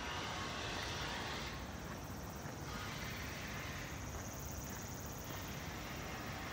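Footsteps on a paved path over a low, steady city rumble, with a high insect buzz from the trees that swells and dips several times.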